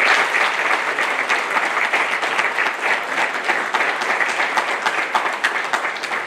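Audience applause: many people clapping in a dense, steady patter that begins to thin out near the end.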